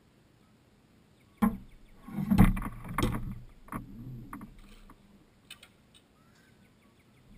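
A sharp knock on the small wooden boat, then water splashing and sloshing close against it, fading over a few seconds, with a few faint clicks near the end.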